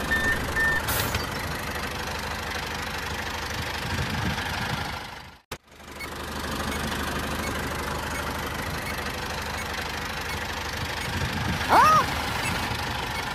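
Tractor engine running steadily, laid over the toy tractor, with a brief dropout about five and a half seconds in before it picks up again. Near the end comes a short sliding whistle-like tone that rises and falls, the loudest sound here.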